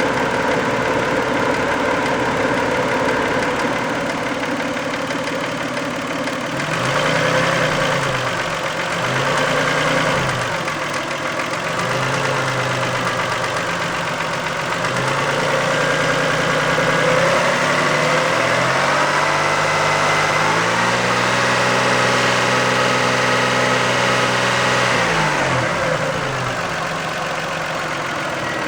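Toyota 2VZ-FE 2.5-litre V6 engine in a 1990 Camry, idling and then sped up and let back down several times. Near the end it is held at higher revs for a few seconds before dropping back to idle.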